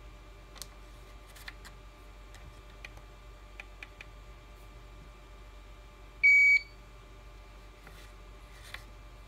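Hakko FX-951 soldering station giving one short high beep about six seconds in, with faint scattered clicks from the plastic key and front-panel buttons being handled.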